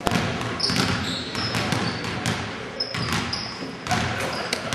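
Basketball game sounds on a hardwood court: a ball bouncing with sharp knocks, brief high sneaker squeaks, and players' voices in the background.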